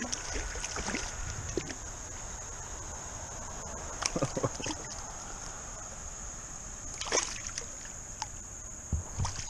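A hooked spotted bass thrashing and splashing in shallow creek water while a hand reaches in to grab it, with sloshing water. Short splashes come about four, seven and nine seconds in.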